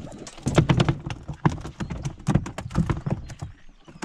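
A freshly caught common carp, about a kilogram, thrashing and slapping against the boat: a fast, irregular run of wet knocks and thuds that dies away about half a second before the end, then one more knock.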